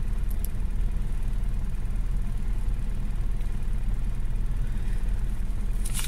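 Steady low rumble of a 4-tonne truck's engine heard inside the cab, with a couple of faint ticks just after the start.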